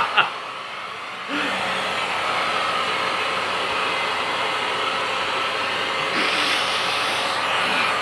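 Vacuum cleaner running with a steady whine through its metal wand. A sharp knock comes right at the start, then the sound turns dull and quieter for about a second before coming back, and it grows hissier about six seconds in.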